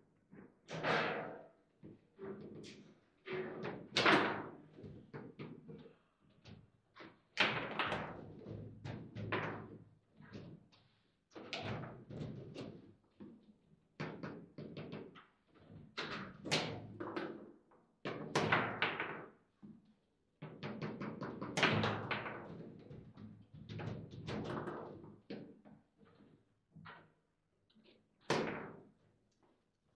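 Table football in fast play: the ball struck by the figures on the rods and banging off the table's walls, with the rods knocking. It is a quick, irregular series of sharp knocks and thuds, some loud, with short pauses between rallies.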